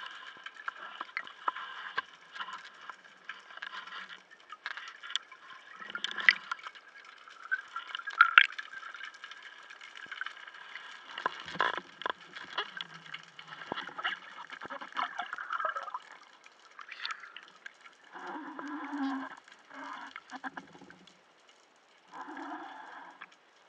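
Underwater sound picked up through a speargun-mounted camera: water gurgling with many scattered clicks and crackles, and a few louder, lower bursts of gurgling in the last several seconds.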